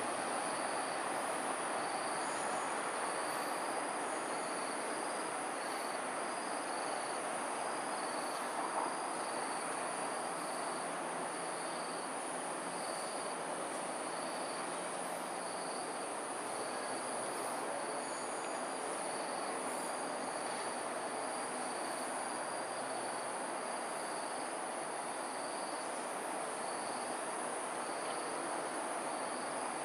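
Evening outdoor ambience: a steady, even rush of noise, with insects keeping up a constant high whine and a short high chirp repeating about twice a second.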